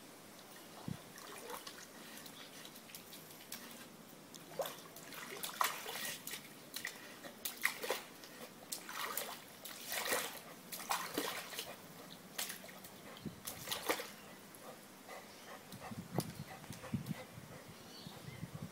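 A dog at a pool's edge dipping its muzzle into the water, making irregular small splashes and slurping noises, busiest in the middle stretch.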